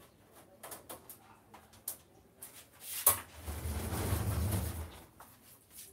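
A few light clicks, then a knock and about a second and a half of low rumbling as a heavy Canon iR3300 photocopier is shifted across the floor.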